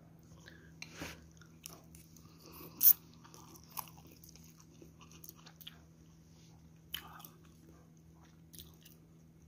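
Person eating noodle soup: quiet eating and chewing sounds with a scattering of short clicks, the loudest about three seconds in.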